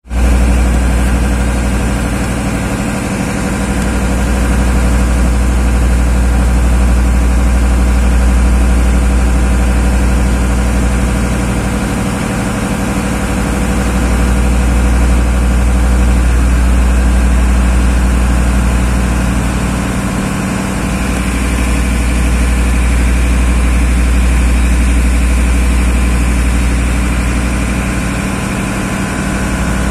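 A tugboat's engine running steadily with a deep, even drone. Its loudness swells and dips slowly, about every eight or nine seconds.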